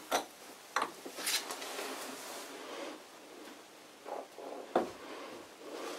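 Light metal clicks and scraping from a steel rod levering the round nut on an old lathe's headstock spindle, with soft handling noise between. There are a few sharp clicks in the first second and a half and one more near five seconds. The nut turns stiffly and needs too much force.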